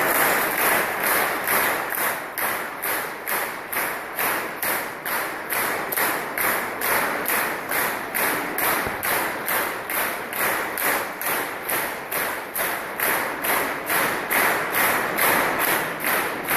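A large audience clapping in unison, a steady rhythmic applause of about two to three claps a second, echoing in a stone church.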